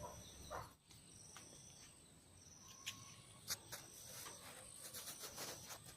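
Near silence, with faint high-pitched insect trills, cricket-like, repeating every second or so, and two soft clicks about halfway through.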